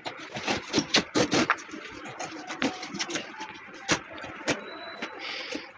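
Irregular series of sharp knocks and clicks from hand work on an old sofa, densest and loudest in the first second and a half, then sparser.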